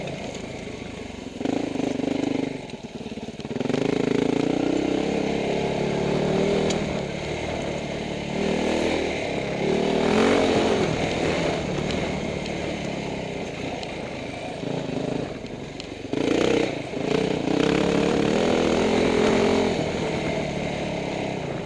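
Off-road rally motorcycle engine heard on board while riding a gravel single track. The engine note rises and eases off again and again as the throttle is worked, with a brief drop about three seconds in and another about sixteen seconds in.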